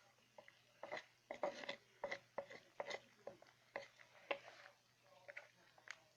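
A utensil stirring chicken and cream in a karahi, with irregular scrapes and clinks against the pan, a few a second.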